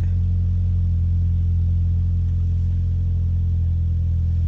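Mitsubishi Evo X's turbocharged 2.0-litre four-cylinder engine idling steadily, its idle settling down as it warms up after a cold start.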